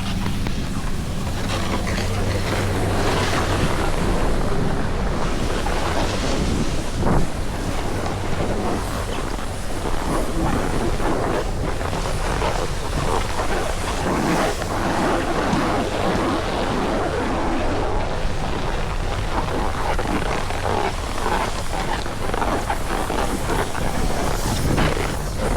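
Wind buffeting the microphone: a steady rush with frequent gusty flutters, over a faint low steady hum.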